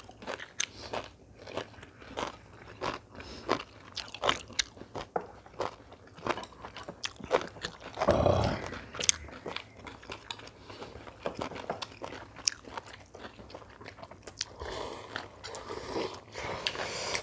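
Chewing and biting of crunchy food, a close, steady run of small crisp crunches and clicks, with one louder, duller sound about eight seconds in.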